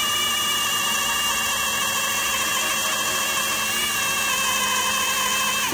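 Power drill running steadily under load with a high whine, drilling out a broken bolt in a truck wheel hub; its pitch sags and it stops right at the end.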